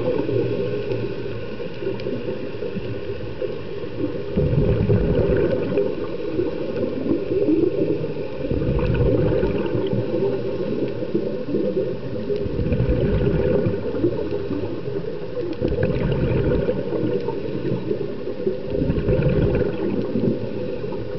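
Scuba diver breathing through a regulator underwater: a burst of exhaled bubbles about every four seconds, five in all, over a steady underwater hiss.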